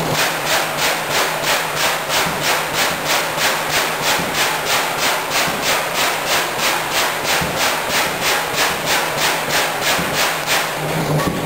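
1918 65 hp Blaisdell air-compressor engine running, with a rhythmic rasping hiss of air about three times a second that stops shortly before the end.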